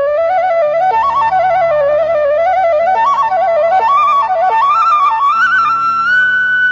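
Background instrumental music: a flute melody that wanders up and down over low held accompanying tones, which come in about a second in. The melody settles on a long held note near the end.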